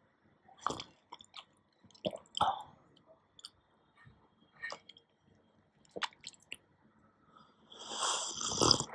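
A person slurping a drink: several short, separate slurps, then a longer, louder slurp lasting about a second near the end.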